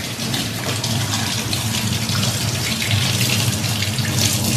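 Kitchen tap running steadily into a stainless steel sink while a brinjal is rubbed clean under the stream; the water is shut off at the very end.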